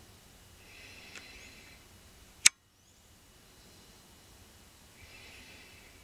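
A single sharp click about two and a half seconds in, cut off into a moment of dead silence. Around it is a faint background with soft, high twittering a second in and again near the end.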